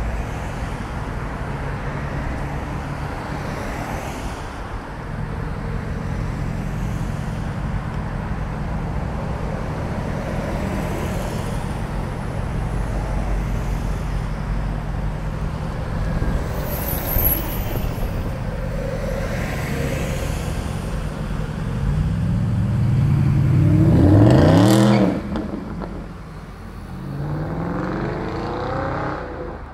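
Mercedes-Benz SLS AMG's 6.2-litre V8 idling with a steady low hum amid city traffic. About 22 seconds in a car engine revs up in a rising sweep, the loudest sound, and cuts off suddenly; near the end another engine accelerates with a rising pitch.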